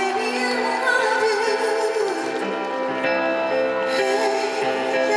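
A woman singing a ballad live into a handheld microphone over backing music, holding long notes with vibrato.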